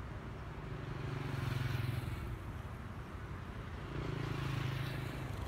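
Road traffic: motor vehicle engines running with a steady low hum that swells twice, about a second and a half in and again around four and a half seconds in.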